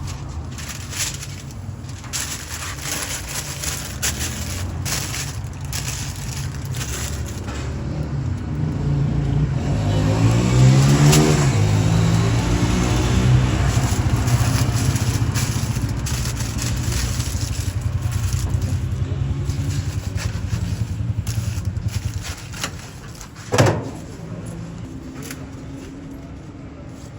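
Street traffic running, with a motor vehicle passing close about halfway through, its engine note rising and then falling. Irregular knocks and scrapes come throughout, and there is a single loud thump near the end.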